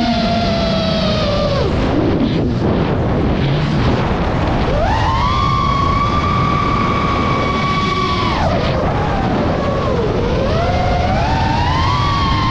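FPV quadcopter's brushless motors whining, pitch falling as the throttle is cut about two seconds in, rising again near five seconds and holding high for about three seconds. The pitch drops again past eight seconds and climbs back near the end, over a steady rush of air noise.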